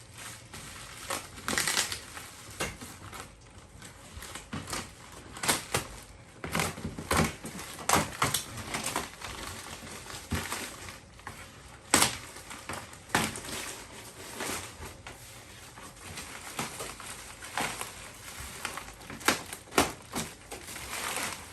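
Packing material such as bubble wrap and wrapping being pulled off and crumpled by hand: irregular crinkling and crackling with scattered sharp pops, the sharpest about halfway through.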